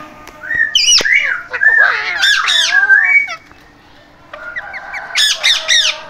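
Alexandrine parakeets squawking: a run of loud, harsh, pitch-bending calls in the first half, then after a short pause a quick series of shrill calls near the end.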